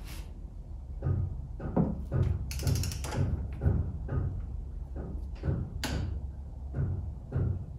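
Hand ratchet being worked on the castle nut at the front spindle of a 1986 Ford Fox-body Mustang, giving irregular metal knocks and clicks about two a second.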